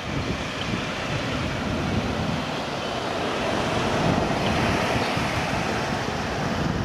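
Airbus A321-200 jet engines on final approach, a steady jet noise that swells a few seconds in as the airliner descends to land, with wind buffeting the microphone.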